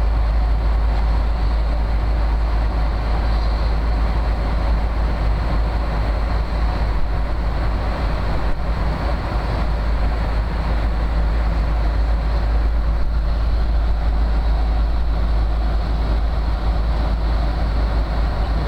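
Steady airliner cabin noise in flight: the engines and rushing air make a deep, even rumble under a wide hiss, unchanging throughout.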